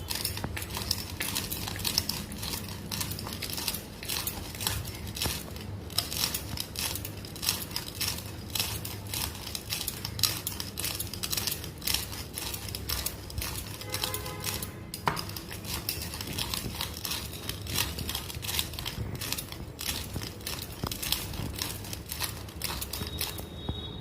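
Whole spices for shukto being crushed and ground by hand in a kitchen utensil: a continuous run of rapid clicks and scraping, with a short lull about halfway through.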